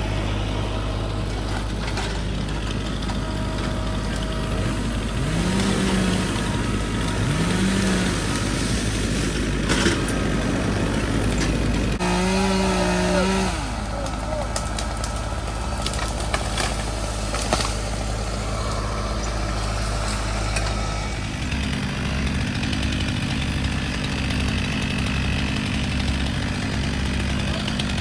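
Chainsaw revving in short bursts during tree felling, over a steady low hum from another running engine that shifts its note about three quarters of the way through.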